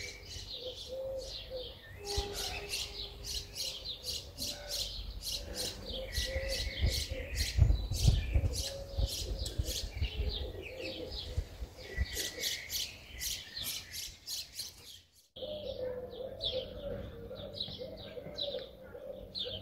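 A chorus of small birds chirping rapidly, with a low cooing underneath. The sound cuts out abruptly about fifteen seconds in, then resumes.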